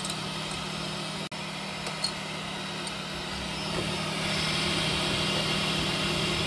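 3D printer's fans and motors running with a steady hum, growing louder and hissier about four seconds in as printing carries on; a momentary dropout cuts the sound about a second in.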